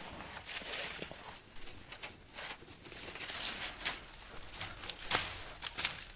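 Heavy tan cloth rustling and scraping as it is pulled out, bunched up and carried, with a few sharp clicks. Sandalled footsteps scuff on sandy gravel near the end.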